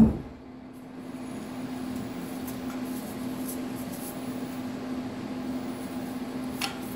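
A single-acting loader hydraulic cylinder, tube and rod held together, dropped onto a wooden block with one thump at the very start, so the rod and piston settle into the tube under their own weight. After that, only a steady low hum and a few faint handling clicks.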